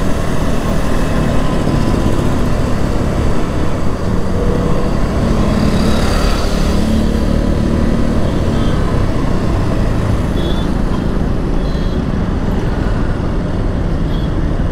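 Motorcycle riding through city traffic, with heavy wind rush on the microphone over the engine and surrounding traffic. The wind and road noise ease off after about twelve seconds as the bike slows to pull over.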